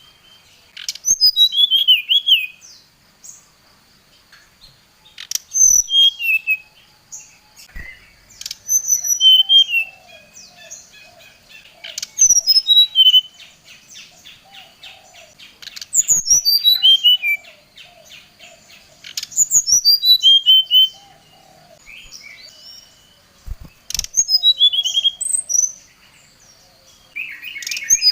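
SRDC (sikatan rimba dada coklat, a jungle flycatcher) singing vigorously: short phrases of clear whistled notes that slide downward, repeated every three to four seconds. It is a lure song, used to provoke rival birds into answering.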